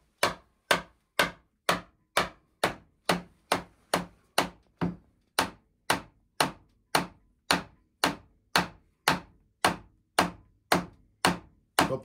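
Steady knocking on wood, about two blows a second, as a tight-fitting pine crossbar is driven into a dovetail groove across a board door.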